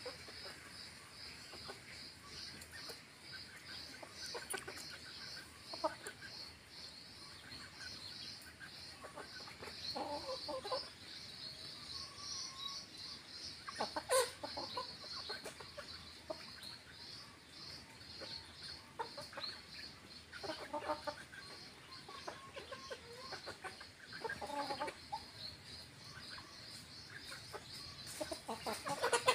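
Roosters and hens clucking on and off as they forage, with a louder call about halfway through and another right at the end.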